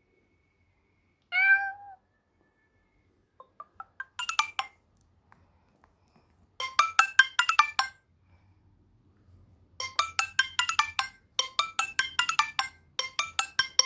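Nokia Lumia 520 ringtones played back: one short tone with a slightly falling pitch, then a ringtone of rapid high notes at about ten a second, in runs of one to three seconds with short gaps between them.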